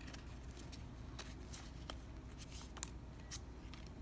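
Baseball trading cards being handled and slid past one another: scattered light ticks and soft rustles, with one sharper click near three seconds in.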